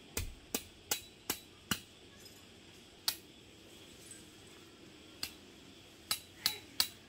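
Peg hammer driving a metal tent peg into gravel ground: sharp metallic strikes, five in quick succession about a third of a second apart, two single strikes, then three more in a quick run near the end.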